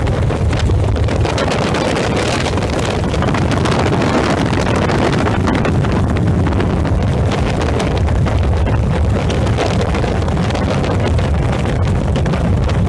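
Helicopter in flight heard from inside the cabin: steady, loud engine and rotor noise with wind buffeting the microphone.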